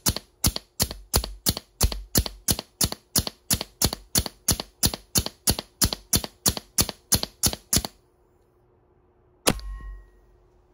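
3D-printed HPA (high-pressure air) Nerf blaster core firing in rapid succession. It gives sharp pops of compressed air at about three a second for some eight seconds, then stops, with one more single shot near the end.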